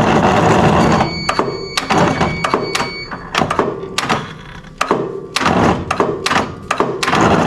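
Start attempt on a 1963 Jenbach two-cylinder diesel air compressor: a short burst of noise, then irregular clunks and clicks about two or three a second, with a thin high tone for a couple of seconds, and the engine does not catch.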